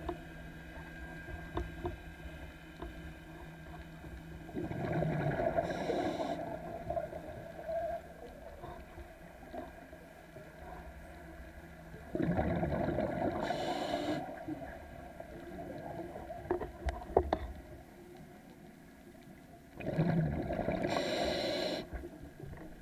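Scuba diver breathing through a regulator underwater: three rushing bursts of exhaled bubbles, each about two seconds long and seven to eight seconds apart, over a low steady hum, with a few sharp clicks in between.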